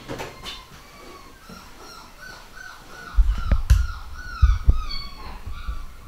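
Fox terrier puppy whimpering in a run of short, high whines. About three seconds in, a few loud low thumps come in over it.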